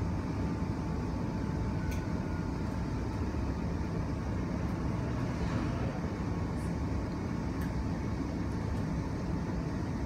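Cabin noise inside an electric commuter train pulling into a station: a steady low rumble with a faint steady whine that dies away about six seconds in, and a single click about two seconds in.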